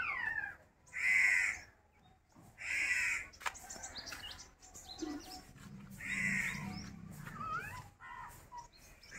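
Crows cawing: three loud, harsh caws, at about one, three and six seconds in, with smaller birds chirping between them.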